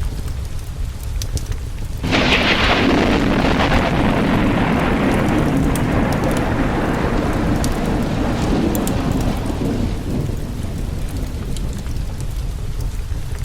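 Thunderstorm with steady rain and a low rumble. About two seconds in, a loud thunderclap breaks with a crackling peal that rolls on and slowly fades over the next several seconds.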